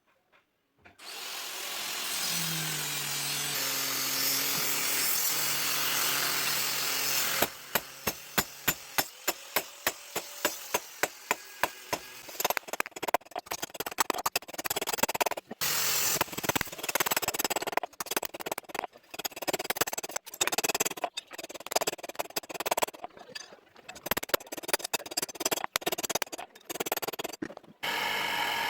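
Hand metalworking on a bowie knife blank. A steady noise runs for several seconds, then sharp strikes come about twice a second, then quicker irregular strokes with scraping.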